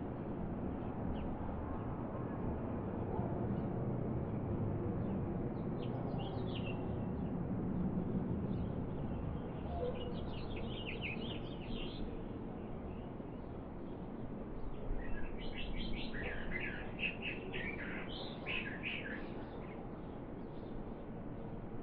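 Small birds chirping in quick high-pitched bursts: a few calls about six seconds in, another cluster around ten seconds, and a busier run of chirps from about fifteen to nineteen seconds. The calls sit over a steady low background rumble of outdoor ambience.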